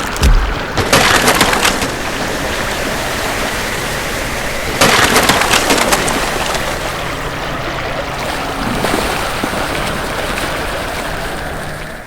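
A steady rushing noise like rain or flowing water, with two louder crackling bursts about a second long, one near the start and one about five seconds in.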